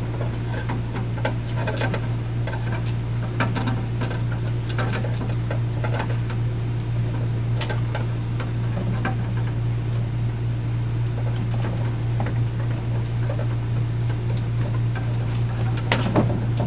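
A steady low hum, with scattered small clicks and rustles of electrical cable, fish wire and tape being handled while the wire is taped to the new cable.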